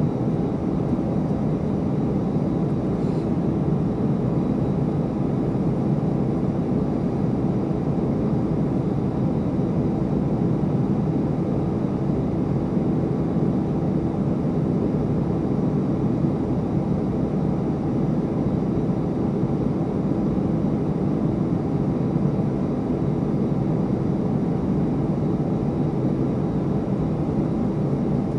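Business jet's turbofan engines running at low power as it taxis slowly on the runway: a steady, unchanging jet hum.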